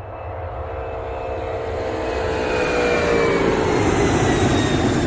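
Jet aircraft flying past, its engine noise growing louder while the whine of the engines slides down in pitch as it goes by.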